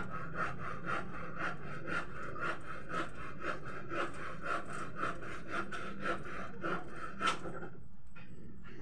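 Regular rasping cutting strokes, about two a second, stopping after a louder stroke about seven seconds in.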